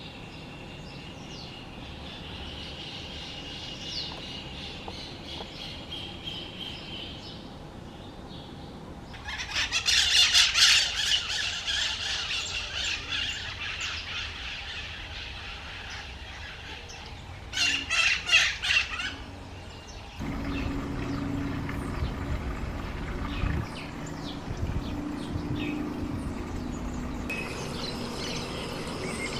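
Wild songbirds chirping and calling in several separate takes. A loud, dense chattering of many calls comes about a third of the way in, a short burst follows past the middle, and a low rumble with faint calls fills the last third.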